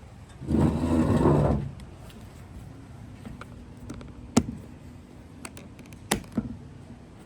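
Metal haptic fidget coins being handled: a loud rustling scrape lasting about a second, then a few sharp clicks a couple of seconds apart.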